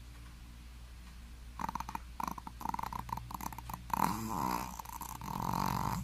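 Shih Tzu snoring in its sleep. About a second and a half in, a run of rapid fluttering snores starts, followed by two longer drawn-out snores near the end.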